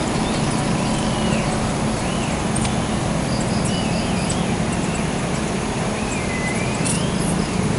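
Steady outdoor background noise, a low rumble with hiss above it, with a few faint warbling bird calls scattered through.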